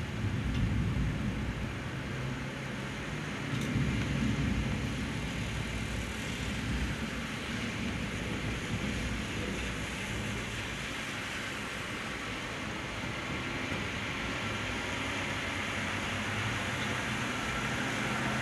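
Heavy tropical rain pouring onto a road, a steady hiss with a low rumble that swells in the first few seconds.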